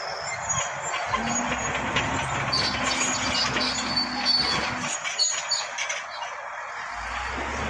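Bulldozer at work: a steady metallic clatter and grinding, with a steady low engine note held for a few seconds in the middle.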